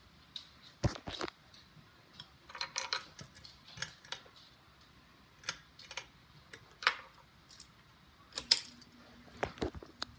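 Light, irregular metallic clicks and rattles, then a sharp click about eight and a half seconds in followed by a steady low hum: a Hunter Mayfair ceiling fan's pull-chain switch being worked and its motor switching on.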